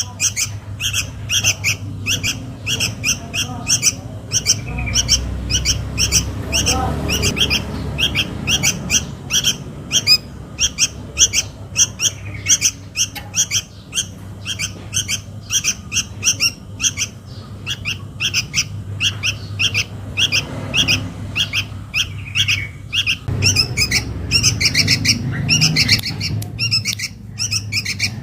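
Juvenile sooty-headed bulbul begging for its parent: a rapid, unbroken series of short, high chirping calls, several a second, used as a lure call to draw adult bulbuls. A steady low hum sits underneath.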